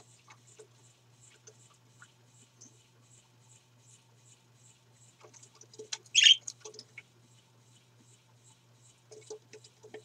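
Pet budgerigars (parakeets) chirping in their cage: faint high peeps repeat steadily, and about six seconds in one bird gives a loud, sharp call that falls in pitch. A few light clicks are scattered around it.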